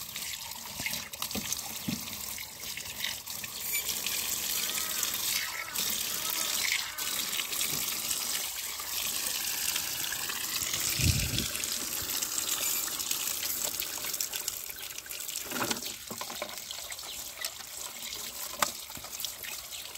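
Tap water running and splashing into a plastic bucket of muddy toy vehicles as they are rinsed by hand.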